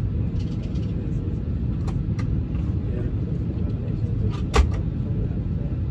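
Steady low hum inside the cabin of a parked Airbus A319 during boarding, with a few light clicks and one sharper knock about four and a half seconds in.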